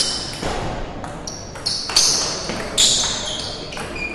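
Table tennis ball clicking off rubber paddles and the table during a rally, about five sharp hits in three seconds, each with a short high ring.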